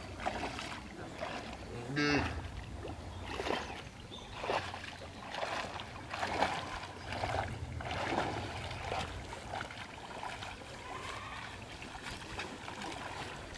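Shallow muddy water splashing and sloshing in irregular strokes as a person wades and sweeps through it by hand. A short pitched call, like a bleat or cry, sounds about two seconds in.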